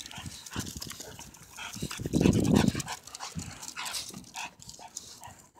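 Two American bully puppies breathing and snuffling, with many light clicks throughout and a louder noisy burst about two seconds in.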